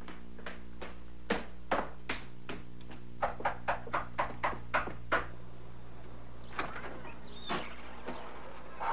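Footsteps on a hard floor, then a quick even run of steps down a staircase, followed near the end by a front door being unlatched and opened, over a steady background hum.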